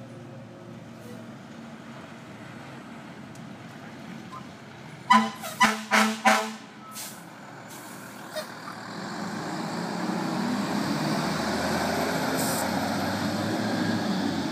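Fire truck air horns sound four short, loud blasts about five seconds in. From about nine seconds, a heavy fire truck's engine grows louder and keeps running loud.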